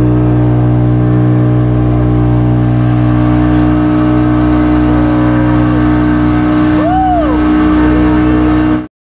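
Yamaha 40 hp outboard motor running steadily at speed, pushing a small speedboat across the sea, a loud even drone that holds one pitch throughout.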